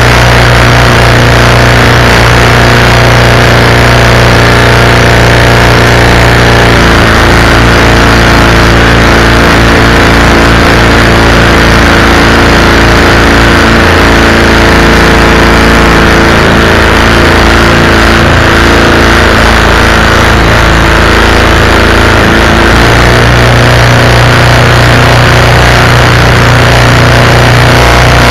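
Predator 212cc single-cylinder four-stroke engine running steadily, driving the canoe's inboard propeller shaft, loud on the microphone.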